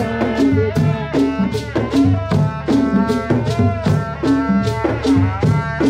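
Live traditional Tiv dance music: drums and shaken rattles keep a quick, steady beat under a melody of short stepping notes.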